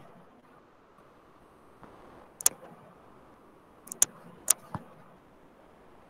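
Sharp, short clicks from drawing a circuit diagram with a pen on a touchscreen whiteboard: one a little over two seconds in, then four more in quick succession around the four-to-five-second mark, over a faint steady hiss.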